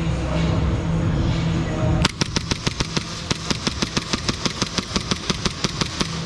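Steady background hum, then about two seconds in an airsoft gun starts firing rapid, evenly spaced shots, about seven a second, that run on to the end.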